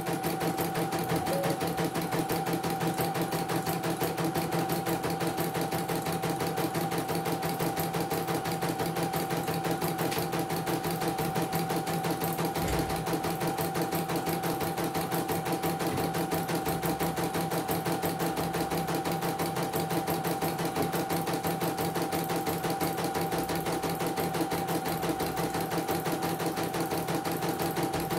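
CNY portable computerised embroidery machine stitching a design: a steady motor hum with a rapid, even run of needle strokes as the hoop carriage moves the fabric.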